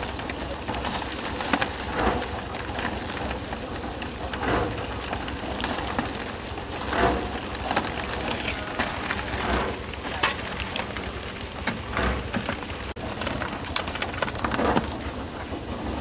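Wet concrete mix of stone chips and cement pouring down a corrugated tin chute: a continuous gritty hiss and patter that swells in irregular surges, with a low steady rumble beneath.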